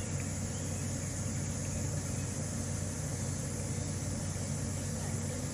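Steady low mechanical hum over a faint background hiss, unchanging throughout.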